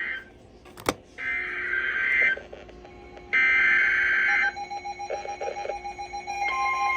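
Emergency Alert System SAME header on NOAA Weather Radio: bursts of shrill digital data tones, each about a second long and about two seconds apart, announcing a severe thunderstorm warning. A steady warning alarm tone starts about six and a half seconds in, with a single click just before the first full burst.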